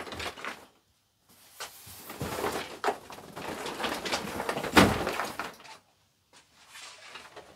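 A large cardboard model-kit box being handled on a workbench: cardboard rustling and scraping, with a few knocks and one loud thump about five seconds in.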